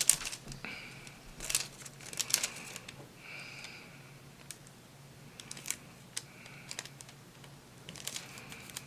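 Nail art transfer foil being handled and pressed onto nail tips: light crinkling with scattered small clicks and ticks.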